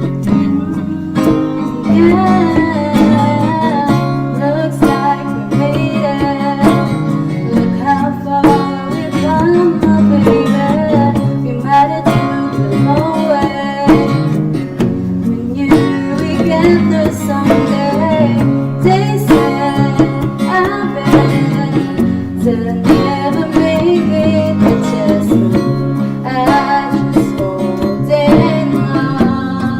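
Acoustic guitar strummed as accompaniment, with a voice singing over it from about two seconds in.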